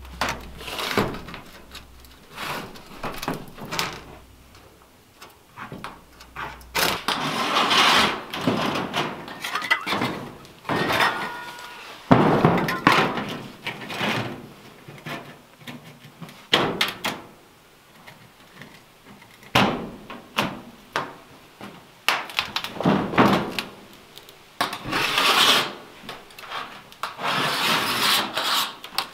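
Wood being handled and worked by hand: irregular knocks and clunks, with several stretches of scraping a second or two long.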